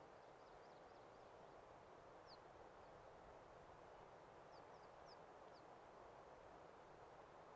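Near silence with a soft, steady hiss, broken by a small bird's brief, high chirps: a few very faint ones at the start, one clearer chirp about two seconds in, and a quick run of four past the middle.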